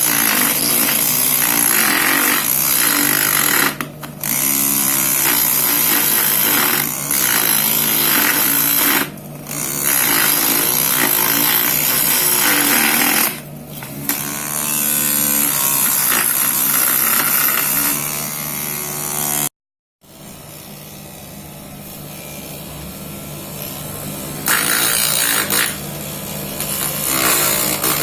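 Homemade mini lathe's 12-volt DC motor spinning a wooden workpiece with a steady hum, while a cutting tool scrapes the wood. The scraping breaks off briefly a few times. After a sudden cut about two-thirds of the way through, the motor runs quieter until loud scraping resumes near the end.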